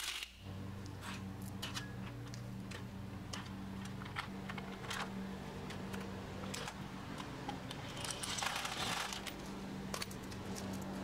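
Scattered light clicks and taps as a plastic hubcap is fitted over a steel wheel and its plastic lug nut caps are snugged with a socket, over a steady low hum.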